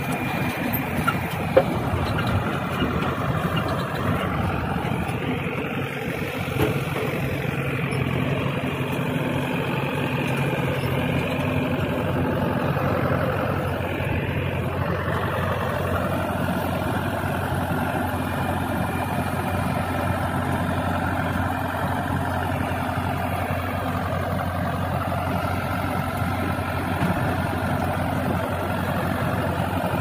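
Diesel farm tractor engine running steadily under load while driving a trailed potato harvester, with the harvester's working machinery mixed in. A sharp click stands out about a second and a half in, and a smaller one a few seconds later.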